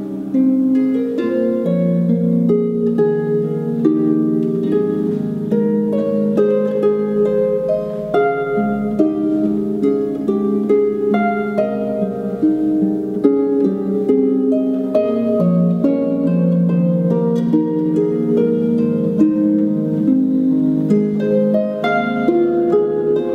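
Concert harp playing a slow, gentle piece, plucked melody notes over rolling low broken chords, each note ringing on.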